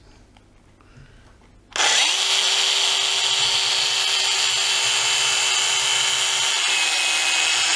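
Bosch EasyCut 12 cordless nanoblade mini chainsaw starting up about two seconds in and running steadily as it cuts through a raw chicken fillet: a high whine over a hiss. Its pitch drops slightly near the end.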